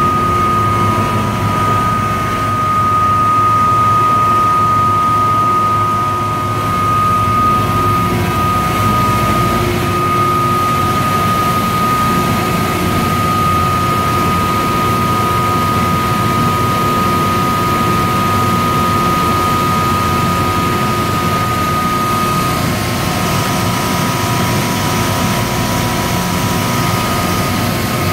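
Erema RM160E plastic recycling extruder and pelletizing line running: a loud, steady machine noise with a high, constant tone over it.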